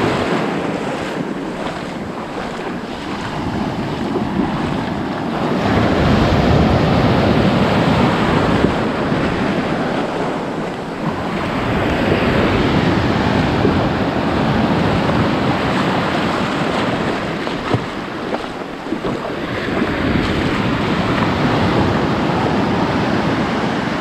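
Gentle ocean surf breaking and washing up over the shallows, swelling and fading in slow surges every several seconds, with wind buffeting the microphone.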